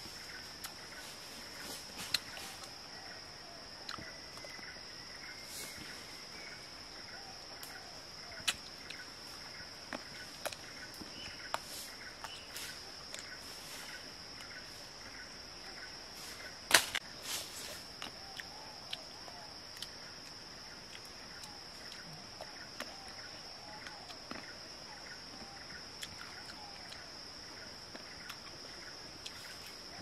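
Insects buzzing in a steady high drone, with scattered sharp clicks and smacks of fruit being chewed. The loudest is a single sharp click about 17 seconds in.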